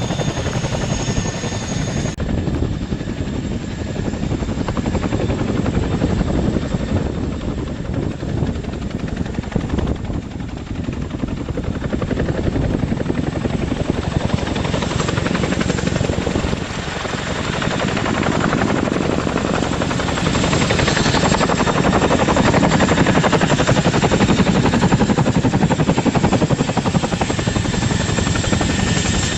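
Boeing CH-47 Chinook twin-engine tandem-rotor helicopter flying, its rotors beating in a rapid steady chop that grows louder about two-thirds of the way in.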